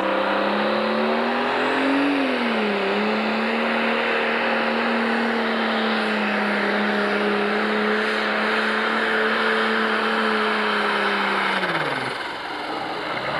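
International Harvester 966 Pro Stock pulling tractor's diesel engine at full throttle, dragging a pulling sled. The engine note climbs, dips briefly about two and a half seconds in, then holds steady. Near the end the revs fall away sharply.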